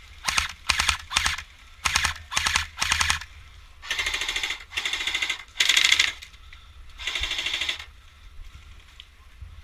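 Airsoft guns firing on full auto: six short rapid bursts in the first three seconds, then four longer bursts of about a second each, ending about eight seconds in.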